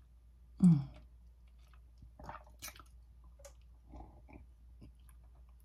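A person drinking juice from a glass: a short hum falling in pitch about half a second in, the loudest sound, then soft scattered mouth sounds of sipping and swallowing.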